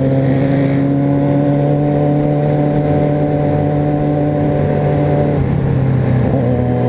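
Motorcycle engine heard from on the bike, running at a steady cruise with its note easing slightly lower, then dipping about five and a half seconds in before settling again, with wind rumble on the microphone.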